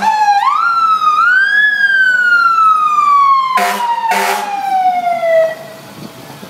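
Fire engine's Federal Q2B mechanical siren spinning up to a high wail, then winding slowly down in pitch until it dies away. About halfway through, two short horn blasts sound over it.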